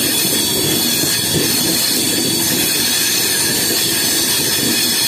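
Vaishali Superfast Express passenger train running at speed: steady, loud rolling noise of the coach wheels on the track, with a thin, steady high-pitched whine over it.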